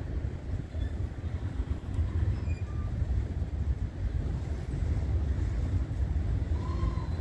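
Union Pacific autorack freight train starting up and rolling slowly: a steady low rumble, with a faint wheel squeal near the end.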